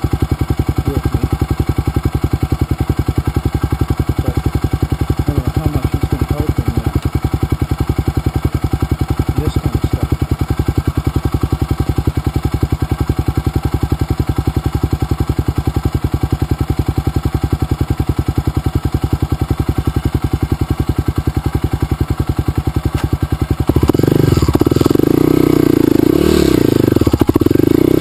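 Dirt bike engine idling steadily with an even firing pulse, then revving louder near the end, its pitch rising and falling.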